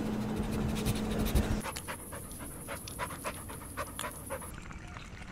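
A puppy panting, followed by a run of small sharp clicks and ticks after an abrupt change about a second and a half in.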